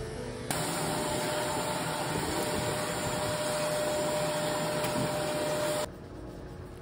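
Vacuum cleaner running, its hose nozzle sucking up clipped dog hair from the floor: a loud rushing noise with a steady whine under it. It starts abruptly about half a second in and cuts off suddenly near the end.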